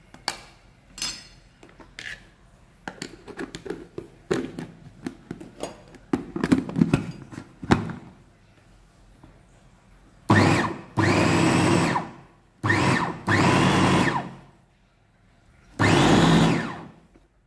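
Small electric food chopper grinding chillies and garlic, run in five short pulses of about half a second to a second and a half each, starting about ten seconds in. Before that come clicks and knocks as the lid and motor unit are fitted onto the bowl.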